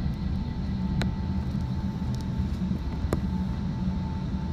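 Cabin noise of an Airbus A380 rolling on the ground after landing: a steady low rumble with a faint steady whine, and two sharp knocks about one and three seconds in.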